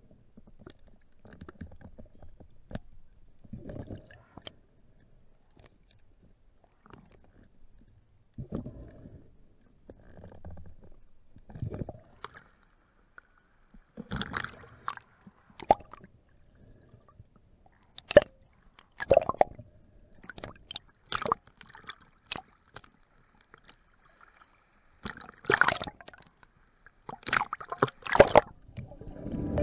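Water sounds around a spearfisher's camera: low, muffled gurgling and swishing while underwater, then from about fourteen seconds in sharper splashing and sloshing in irregular bursts as the camera breaks the surface.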